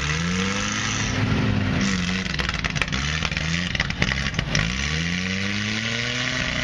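Lifted Toyota pickup's engine revving in repeated surges, its pitch climbing each time, as the truck pushes through deep mud, with scattered sharp clicks.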